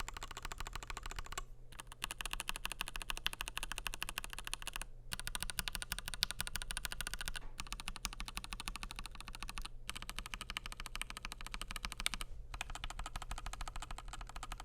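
Fast typing on a FiiO KB3 mechanical keyboard with Gateron G Pro 3.0 Yellow linear switches, a stainless steel plate and translucent PC keycaps: dense runs of keystrokes with brief pauses between them.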